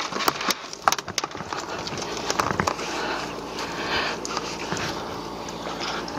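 Steady wind and water hiss with scattered sharp clicks and knocks as a large fish is worked out of a landing net on a boat deck.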